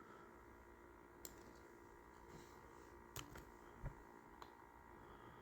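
Near silence: room tone with a handful of faint, scattered clicks from computer input while copying and pasting.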